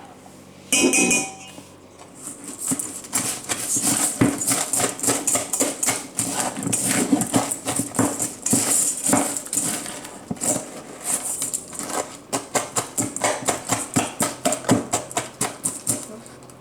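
Dry cornflakes being stirred into honey in a bowl: crackly crunching and rustling in quick repeated strokes, with a ringing clink about a second in.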